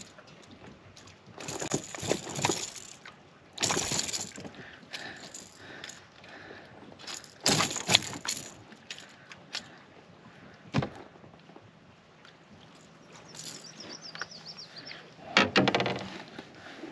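Handling noises in a kayak while a hooked freshwater drum and a crankbait are dealt with: several short scuffing rustles, a sharp knock a little past halfway, and a quick rattle near the end.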